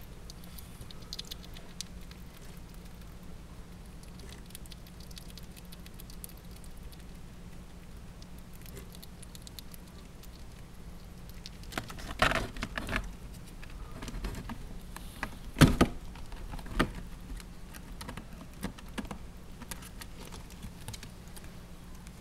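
Pet rat eating macaroni and cheese: small, fast clicks of chewing and pattering paws on paper towel, with a few sharper knocks and clicks a little past halfway through, the loudest near the end of that run.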